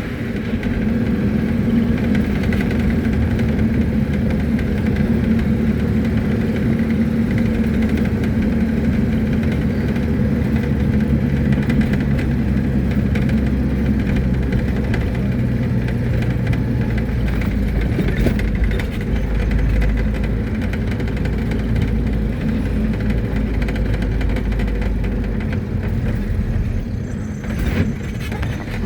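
Mercedes-Benz T1 minibus under way, heard from inside: a steady engine note over a low road rumble.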